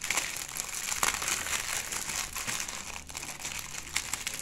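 Clear plastic bag crinkling as it is handled, with a steady crackle and a few sharper snaps near the start and about a second in.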